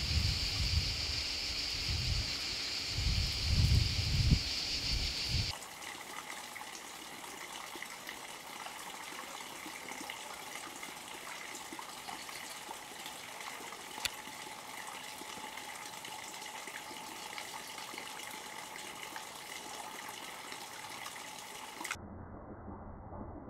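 Steady high-pitched insect buzzing with low rumbles for the first five seconds or so. After that comes a quieter soft trickle of water with faint steady tones, which turns muffled near the end.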